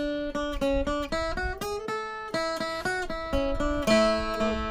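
Background music: an acoustic guitar playing a picked melody, notes changing every few tenths of a second.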